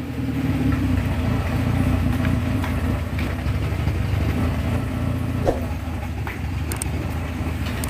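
Suzuki Carry 1.0's four-cylinder engine running steadily at idle, heard from the tailpipe end. The engine ran low on oil and now blows smoke, which the mechanic says only an engine overhaul will cure.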